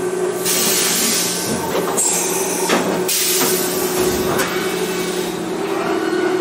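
Mori Seiki NH5000/40 CNC horizontal machining center running, with a steady motor hum. Over the hum come two long stretches of hissing, each a second or more, and a few short clicks.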